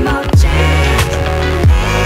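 Background music with a steady beat: deep bass drum hits that drop in pitch, and sharp snare-like hits over sustained notes.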